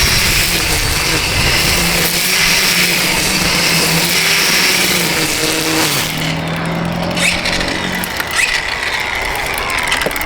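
DeWalt 20V brushless cordless string trimmer running at speed, its spinning line cutting through long wet grass over a steady motor hum. About six seconds in the cutting noise drops away, and the motor hum stops about two seconds later, leaving a few small clicks.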